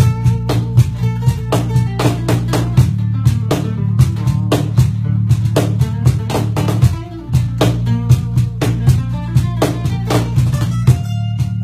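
Instrumental stretch of a live acoustic rock song: acoustic guitar and bass guitar playing under a steady beat of hand-played percussion hits, with a brief drop in loudness about halfway through.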